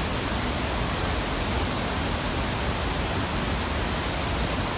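Whitewater rapids of the Tallulah River rushing steadily, an even, unbroken water noise.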